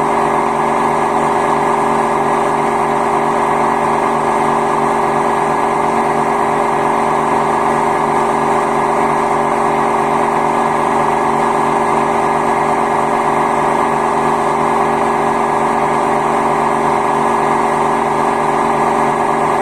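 Samsung WW10T534DAW front-loading washing machine spinning its drum, a loud, steady mechanical noise with a constant hum that does not change in pitch. The noise comes from worn drum bearings that needed replacing.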